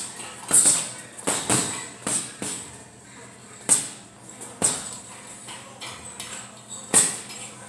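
Boxing-gloved punches landing on a teardrop-shaped heavy bag: about eight thuds in short, uneven combinations, some in quick pairs, the hardest about four seconds in and near the end.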